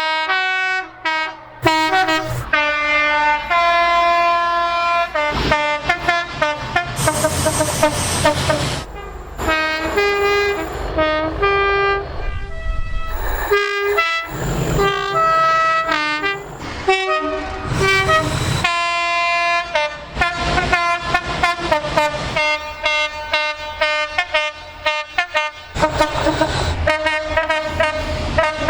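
British train horns sounding in quick succession: many short blasts, the notes jumping between higher and lower pitches with abrupt changes from one to the next. A few bursts of rushing noise come in between.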